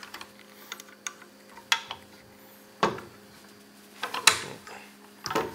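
A string of sharp clicks and knocks from a table saw's rip fence and its metal rail hardware being handled and reseated, the loudest about three and four seconds in. A faint steady hum runs underneath.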